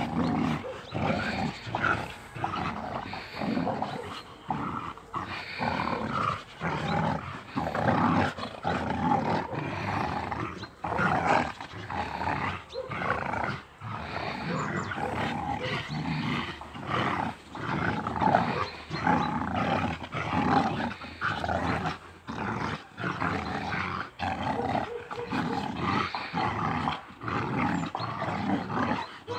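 Rottweilers growling during a playful tug-of-war over a rope: a near-continuous rough growl broken by short gaps every second or so.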